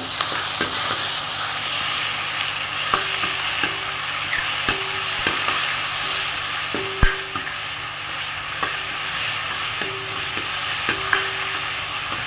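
Chopped tomatoes and shallots sizzling in hot oil in a metal kadai while a steel ladle stirs them, its knocks and scrapes against the pan coming about once a second with a short metallic ring, the loudest just past the middle.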